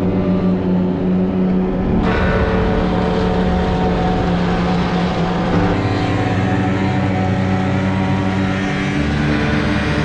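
Snowmobile engine running steadily while riding, a loud drone whose pitch steps to a new level a few times.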